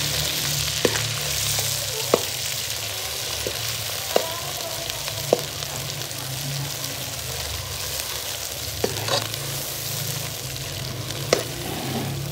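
Ground chana dal paste sizzling in hot ghee in a kadhai as it is stirred with a spoon, the spoon knocking and scraping against the pan every second or two. This is the start of roasting the dal for halwa.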